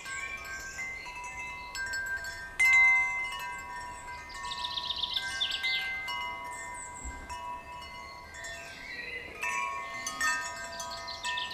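Rokakku wind chime's six hollow alloy tubes, gold finish, struck by the central wooden striker and ringing in overlapping bell-like tones, with strike after strike and the loudest about two and a half seconds in.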